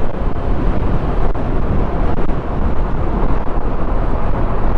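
Steady wind rush on the microphone with the running of a Honda XRM 125's single-cylinder four-stroke engine underneath, while the motorcycle is ridden.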